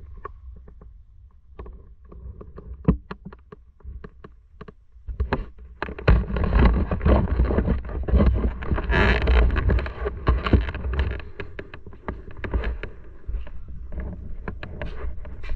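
Motorcycle running with low engine rumble and wind noise on the microphone, with scattered clicks and knocks over a quieter rumble in the first few seconds. About six seconds in the noise grows much louder, then eases off again after about eleven seconds.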